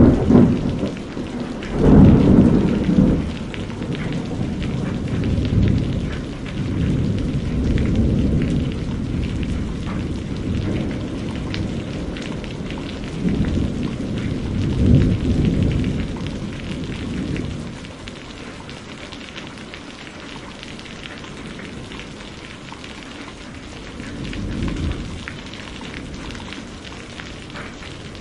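Heavy rain falling steadily, with repeated low rolls of thunder. The loudest rumble comes about two seconds in, more follow through the middle, and the thunder fades to a faint roll near the end while the rain keeps on.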